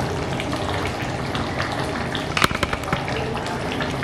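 Thin hilsa fish curry (jhol) bubbling at a steady boil in a kadai, with many small pops and crackles. A brief sharp clatter comes about two and a half seconds in.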